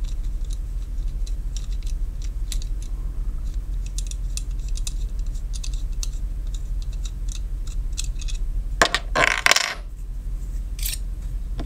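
Small steel fittings of a takedown finka knife ticking and clinking in the hands as the knife is reassembled, with a louder metallic scrape lasting under a second about nine seconds in. A steady low hum runs underneath.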